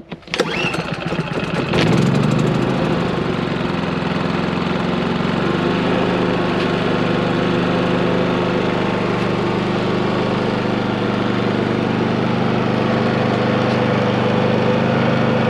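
Cummins Onan P4500i inverter generator pull-started with one pull of the recoil cord: a short rattle as it turns over, then the engine catches within about two seconds and settles into a steady run.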